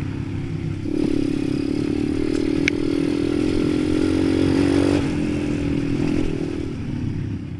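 Irbis TTR-125 pit bike's single-cylinder four-stroke engine running under way at a steady note, a little quieter from about five seconds in and fading near the end.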